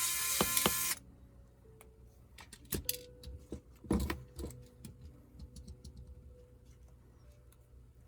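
A small cordless electric screwdriver spins up with a rising whine and runs for about a second, then stops. Scattered light clicks and knocks follow as the laptop's screws and parts are handled, with two louder knocks about three and four seconds in.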